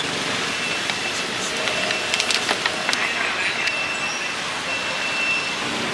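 Wok frying over a gas burner: a steady rushing hiss, with a cluster of sharp metal clicks of the spatula striking the wok about two to three seconds in.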